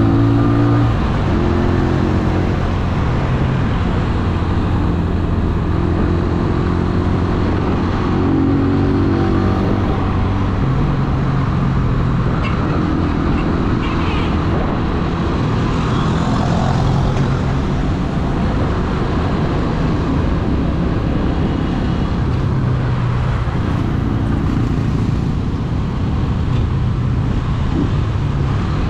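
Small single-cylinder four-stroke engine of an AKT NKD 125 motorcycle running under way, its note rising and falling several times, over steady wind and road noise on the microphone.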